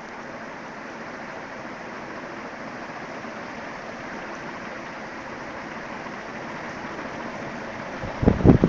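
Early-to-mid 1960s SMC H56 ceiling fan running with a steady whoosh of moving air. Near the end, irregular gusts of its draft buffet the microphone.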